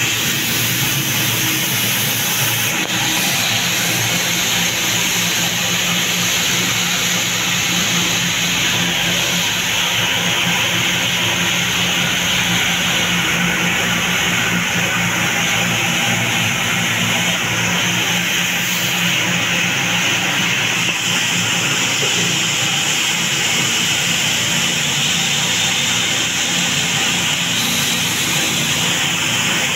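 Wheat cleaning machine running, its belt-driven DC motor shaking stacked sieves of grain, making a loud, steady mechanical noise with a faint even hum underneath.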